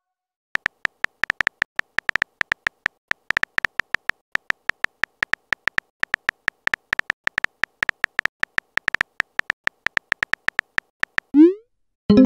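Phone keyboard typing sound effect: rapid, uneven runs of short pitched clicks as a text message is typed. Near the end a short rising whoosh marks the message being sent, followed by a brief chime.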